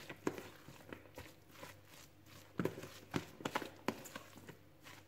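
A utensil stirring a thick, moist filling in a plastic bowl: irregular light taps and clicks against the bowl, a few a second, with soft scraping between.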